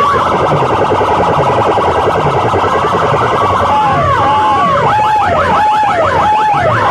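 Electronic siren and alarm sound effects blasted through stacked horn-loudspeaker sound rigs: a dense stream of rapid falling chirps, joined about halfway through by a siren wail that rises, holds and falls roughly once a second, over low thuds.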